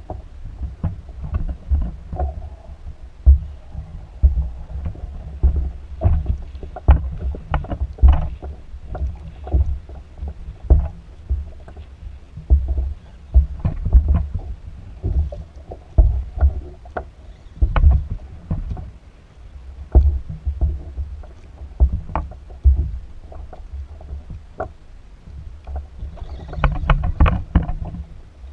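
Water slapping against a plastic fishing kayak's hull in light chop, with irregular low thumps and scattered sharp knocks, a dense cluster of knocks near the end.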